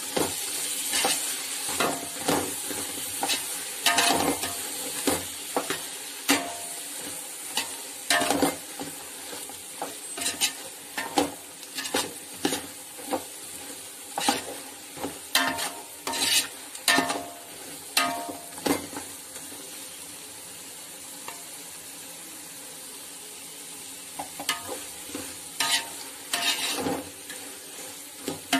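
A metal spoon stirring coriander and mint leaves into sizzling onions and masala in a metal pot, clinking and scraping against the pot at irregular intervals over a steady sizzle. The stirring stops for a few seconds past the middle, leaving only the sizzle, then resumes briefly near the end.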